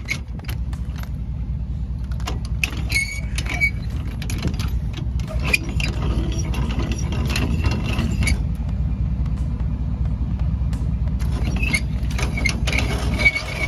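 Pickup truck engine idling with a steady low rumble, with irregular metallic clicks and knocks as a trailer tongue jack's crank handle is turned at the hitch.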